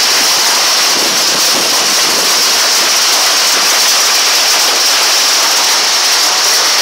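Hailstorm: hail and heavy rain falling hard, a loud, dense, steady hiss of countless small impacts.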